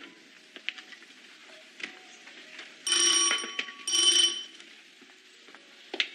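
A doorbell rings twice, two short rings of under a second each, about three and four seconds in.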